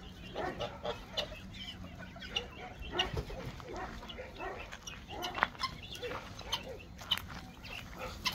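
Mixed farmyard poultry calling: scattered short clucks and chirps from a flock of chickens and young fowl.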